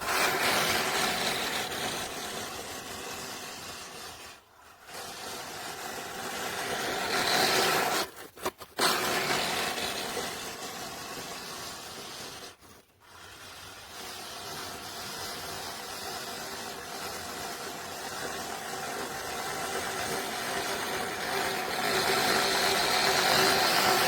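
Manual push reel mower with a 16-inch, five-blade reel, whirring and clattering as the spinning blades cut grass. The sound stops briefly three times, about four and a half, eight and a half and thirteen seconds in, and is loudest near the end.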